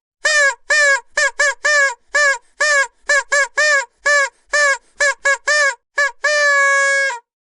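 Vuvuzela blown in a rapid string of short toots, each bending slightly in pitch, then one long held note of about a second near the end.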